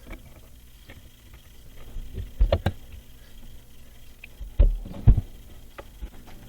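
Scattered light clicks and a few dull knocks of a wrench and metal fittings being worked under a sink as supply-line compression nuts are tightened, the loudest knocks about two and a half and five seconds in.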